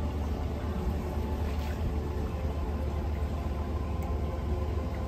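Steady low rumble with a faint hiss, the background hum of a cruise ship's open deck, with no distinct events.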